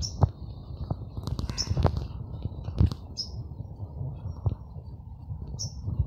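Small bird chirping: four short, high chirps about a second and a half apart, over low thumps and rustling.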